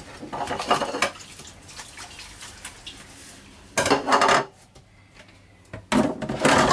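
Dishes clattering in a galley sink as they are handled for washing: crockery knocking against a stainless bowl and the sink. It goes in bursts: a few light knocks in the first second, a louder clatter about four seconds in, and another from about six seconds.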